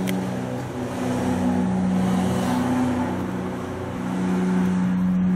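Steady low engine hum of a motor vehicle running, growing louder again about four seconds in.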